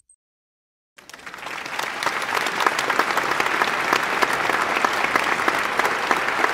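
Crowd applause, many hands clapping, swelling in about a second in and then holding steady.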